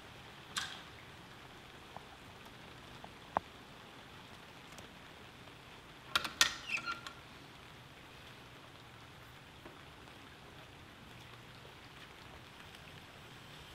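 Steady rain in the background. A light knock comes about half a second in and another about three seconds in, then a quick cluster of metallic clinks about six seconds in as the portafilter is seated in the Flair 58 lever espresso maker's brew head.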